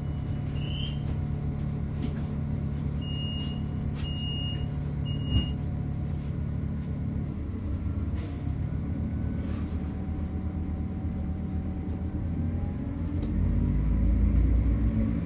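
Train running, heard from inside the carriage: a steady low rumble and hum, with three short high beeps a few seconds in and a single knock soon after. The rumble grows louder near the end.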